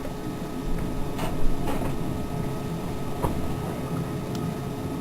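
A few light clicks and knocks over a steady low hum.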